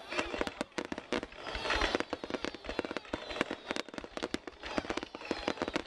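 Fireworks display going off in a rapid barrage: many sharp bangs and crackles every second, with no break.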